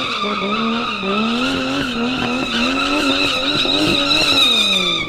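Nissan Silvia S14 drift car with a 1JZ-GTE turbo straight-six held in a long drift: the tyres squeal in a steady high screech while the engine revs rise and fall under it. The engine note drops away near the end.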